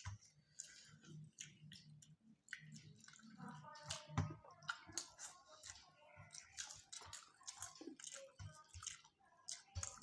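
Faint eating sounds: rice and egg curry being mixed and squished by hand on steel plates, with irregular small clicks and chewing. The loudest click comes about four seconds in.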